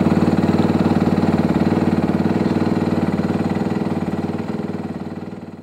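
Motorcycle engine idling with a fast, even pulse, fading out over the last two seconds or so.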